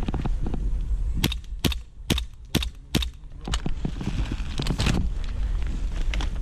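Airsoft gun firing single shots, a string of sharp snaps about one every half second, with more spread out before and after.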